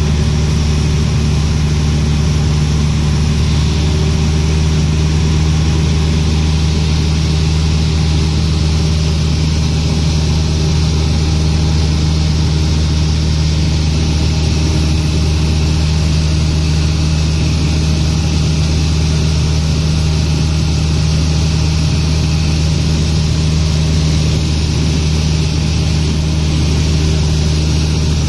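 A Cessna 150's four-cylinder Continental O-200 engine and propeller running steadily in flight, heard from inside the cockpit as an unchanging low drone.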